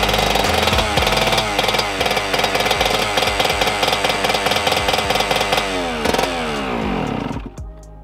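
Yamaha YZ125 single-cylinder two-stroke dirt bike engine running on its first start after a rebuild, idling high and unevenly. About seven seconds in the kill switch cuts it and the revs wind down to a stop.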